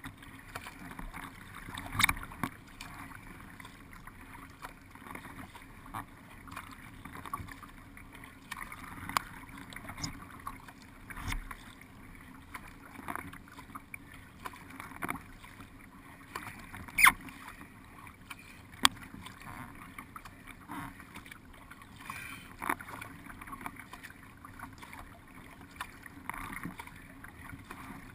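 Water lapping and swishing along the hull of a paddled racing boat under way, with short sharp splashes or ticks every second or two from the paddle strokes.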